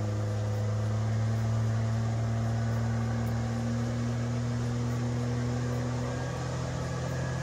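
Outboard motor running steadily at cruising speed with the boat underway, its hum shifting slightly higher in pitch near the end, over water rushing past the hull.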